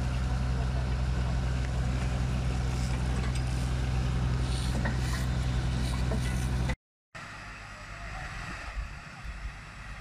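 Fire truck's engine running steadily at a constant speed, powering its pump while a hose sprays water. The sound cuts off abruptly about seven seconds in, giving way to a quieter, uneven low rumble.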